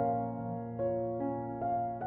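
Slow, gentle piano music, single melody notes struck about every half second over held low notes.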